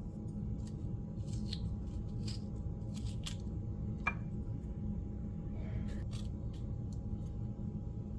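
Short, scattered scrapes and clicks of a spoon scooping cucumber pulp and seeds into a bowl, with one sharper tick about four seconds in, over a steady low hum.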